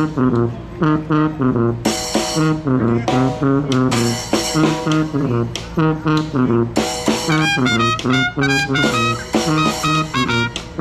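A New Orleans-style brass trio plays: a sousaphone bass line and a snare drum groove, with a trumpet joining in about two-thirds of the way through.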